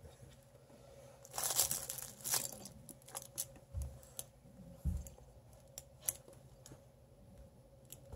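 Redbone Coonhound puppies mouthing and tugging at plush toys: irregular rustling in short bursts with small clicks, and two soft thumps midway.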